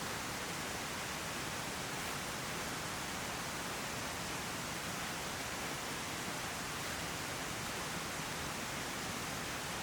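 Steady rush of flowing river water, an even hiss with no breaks or changes.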